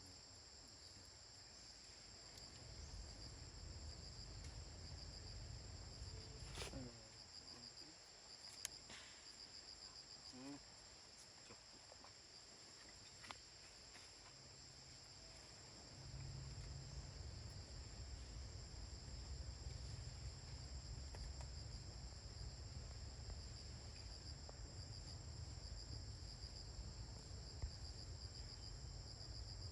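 Insects trilling steadily at a high pitch over a low rumble, which grows louder about halfway through.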